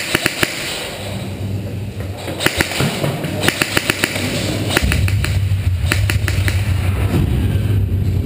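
Airsoft guns firing in short rapid bursts of sharp clacks, several bursts a second or so apart. A steady low hum comes in about five seconds in.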